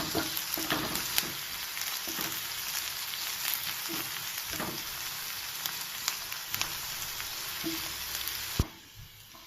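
Chopped onions sizzling in hot coconut oil in a pan, stirred, with scattered clicks of the spoon. A sharp knock about eight and a half seconds in, and then the sizzle cuts off abruptly.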